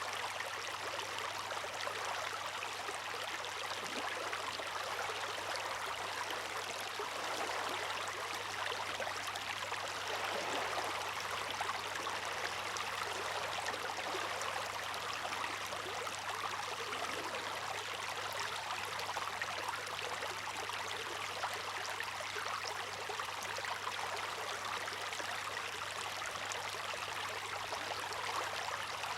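Steady rushing, splashing water, an even wash of sound without distinct wave swells.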